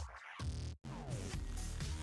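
Background electronic music with a steady beat and a falling synth glide just after a brief drop about a second in.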